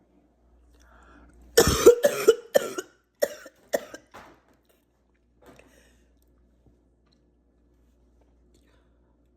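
A woman coughing: a fit of about six hacking coughs in quick succession, starting about a second and a half in and dying away by about four seconds in. The coughs come from a chest and throat congested with flu while she inhales strong menthol steam.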